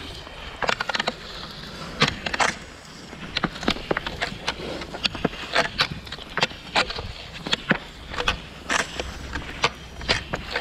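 Cross-country skiing on thin snow: ski-pole tips striking the thin snow over the path in a run of sharp clicks, about one to two a second, over the scrape and hiss of Fischer Twin Skin skis sliding on the rough snow.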